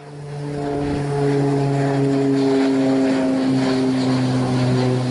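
Beechcraft Texan T1 turboprop trainer flying past, its propeller giving a steady hum of several tones that drift slightly lower in pitch. It fades in over about the first second.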